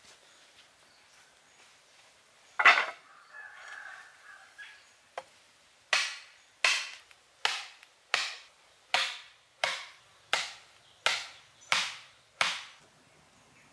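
Wooden stakes being pounded into sandy ground by hand: one loud blow, then after a pause a steady run of about ten blows, roughly three every two seconds.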